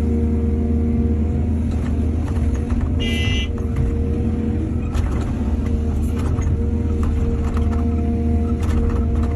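Excavator's diesel engine running steadily at work, with scattered short knocks and clanks. A brief high-pitched squeal about three seconds in.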